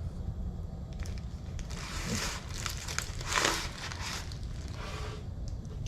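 Shipping packaging being handled and opened: rustling and crinkling, with a few small clicks and two louder swells about two and three and a half seconds in.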